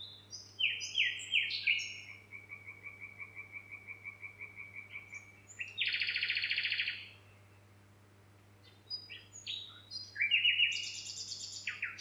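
A songbird singing two phrases of sharp, quick descending notes. The first phrase runs into a long even trill and ends in a harsh buzzy note, and the second comes about three seconds later. A faint steady low hum lies underneath.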